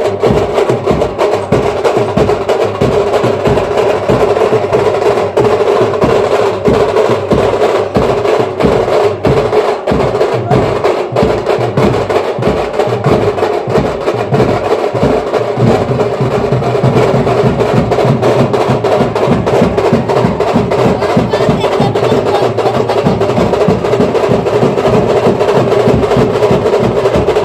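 Timki drums (small paired kettle drums of a Gujarati band) played in a fast, unbroken stream of sharp strikes, over a steady held tone.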